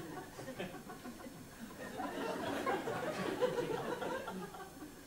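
Live audience laughing and chuckling, dying down toward the end.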